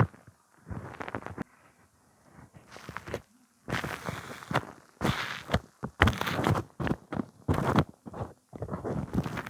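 Close-miked ASMR handling sounds: a string of short rustling, crackling bursts with sharp taps among them, separated by brief pauses.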